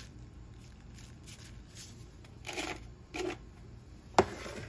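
Seasoning shaken from a spice container into a zip-top plastic bag of flour: two short rustling shakes a little past halfway, then a single sharp knock near the end.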